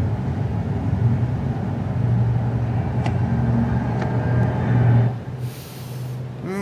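City traffic ambience: a steady low rumble of vehicles with a few faint clicks, easing off about five seconds in, followed by a short high hiss.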